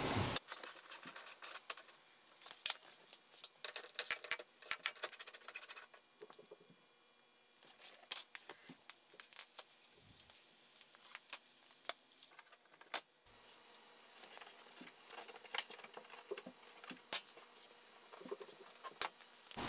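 Faint, irregular clicks and light knocks of a hand ratchet and metal bolts as the two 10 mm bolts of a car's door-sill trim are undone, with the trim piece being handled near the end.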